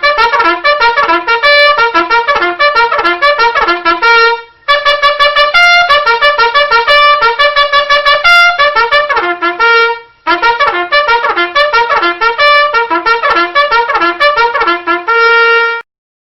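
A fast, busy trumpet tune of quick running notes, played as three phrases with brief breaks between them. Each phrase ends on a held low note.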